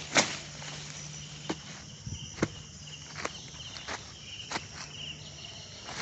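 Footsteps walking on a forest floor at an unhurried pace, about one step a second, the first step the loudest. Insects chirp faintly in the background.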